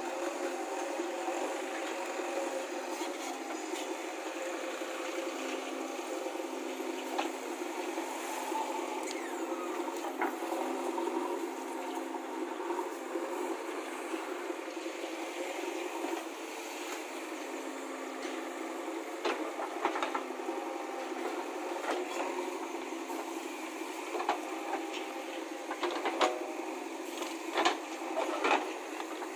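JCB 3DX backhoe loader's diesel engine running steadily under load while the backhoe arm digs. A few sharp knocks sound near the end.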